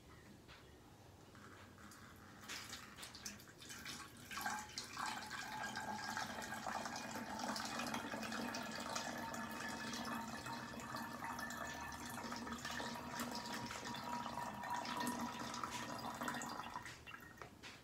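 Water poured from a plastic measuring cup into a narrow-necked plastic bottle: a few dribbles at first, then a steady pour lasting about twelve seconds that stops shortly before the end.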